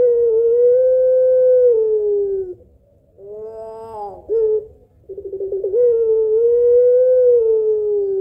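Puter pelung dove, a long-voiced Barbary dove variety, cooing: two long drawn-out coos, each held about three seconds on one note that sags in pitch at the end, with a few short coos between them.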